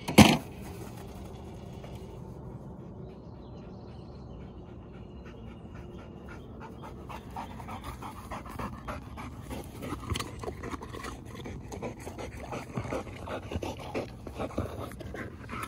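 A golden retriever panting rapidly close by. The panting grows louder over the second half. A single loud, sharp thump comes just at the start.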